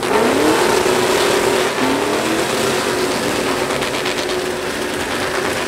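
Pickup truck engine revving during a burnout: it climbs twice in pitch, then is held at high revs while the rear tyres spin.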